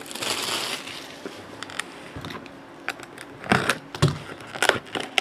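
A trading-card box and its packaging being opened and handled: a soft rustle at first, then a series of separate clicks and scrapes.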